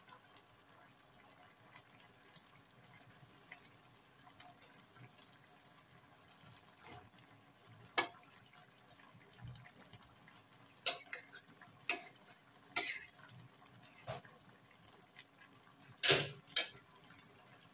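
Metal spatula knocking and scraping against a metal wok while a fish stew in yellow spice sauce is stirred. Quiet at first, then about seven sharp clinks spread over the second half, with the loudest pair near the end.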